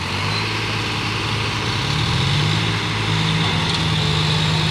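Tractor engines revving hard under heavy load as one tractor tows a loaded tractor stuck in deep mud. The engine note steps up at the start, rises again about two seconds in, and then holds steady.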